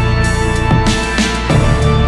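Background music with a steady beat of drum hits.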